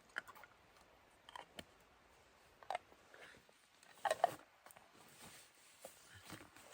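A few short, irregular rustles and clicks, like gear or clothing being handled, the loudest a quick pair about four seconds in.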